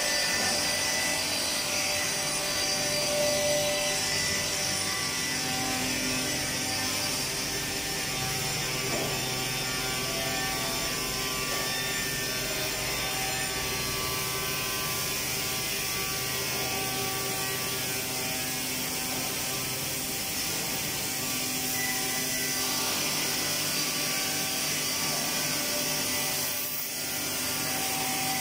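Woodworking production-line machinery, the tenoning machines among it, running steadily: a constant mix of motor hum and whine at several pitches over a high hiss.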